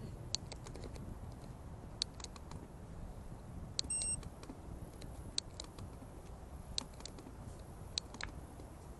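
Bicycle riding noise picked up by a bike-mounted camera: a steady low rumble of wind and tyres with scattered sharp clicks and rattles from the bike, and a short high beep about four seconds in.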